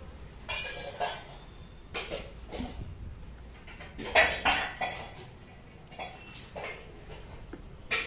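Plastic clattering and crinkling as a toddler handles plastic ice-pop packets on a plastic jar lid: a string of short taps and crinkles, the loudest cluster about four seconds in.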